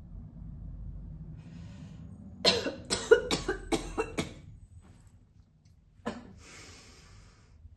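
A woman's smoker's cough while smoking a cigarette: a fit of about six hard coughs in quick succession. A little later comes one more cough and a long breathy breath.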